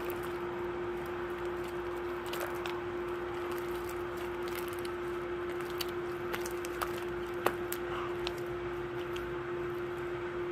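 Glue being stirred in a container for slime, giving scattered small clicks and squishes, over a steady hum.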